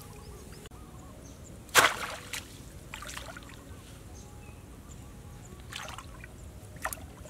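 Shallow muddy field water splashing and sloshing around a bamboo plunge basket as it is worked into the water and hands grope inside it for fish. There is one sharp splash about two seconds in, then a few softer ones.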